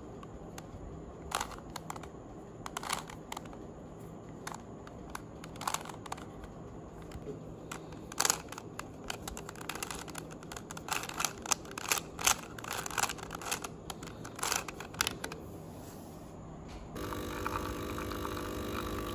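Plastic 3x3 puzzle cube being turned by hand: irregular clicks and clacks as the layers are twisted, coming thicker from about eight seconds in. Near the end the clicking stops and a coffee machine's pump starts a steady hum as it dispenses coffee into a mug.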